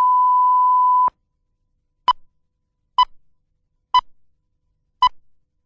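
Electronic beep tone: a steady beep that cuts off about a second in, then four short beeps of the same pitch, about one a second.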